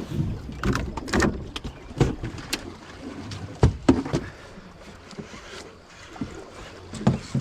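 Irregular knocks and clatter of fishing gear being handled on the boat, over a steady low background noise.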